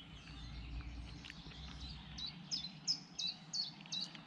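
A songbird singing a run of about six short, high notes, about three a second, starting about two seconds in, over faint outdoor background noise.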